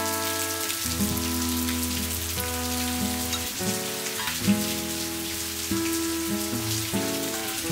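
Steady monsoon rain falling and dripping from the eaves of a traditional Korean tiled roof, an even hiss with fine drop patter. Soft instrumental music of sustained notes runs under it, its chords changing about every second.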